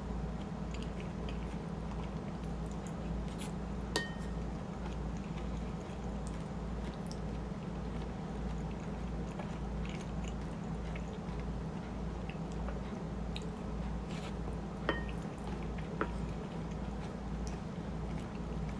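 Close-miked chewing of food, a steady rhythmic mouth sound. A utensil clinks against a dish twice with a short ring, about four seconds in and again near the end, with a smaller tap just after the second.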